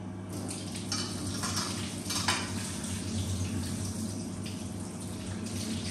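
Kitchen clatter of a steel knife against a ceramic plate, with a sharp clink about two seconds in. Under it there is light tap water as an aloe vera leaf is rinsed in a steel sink, over a steady low hum.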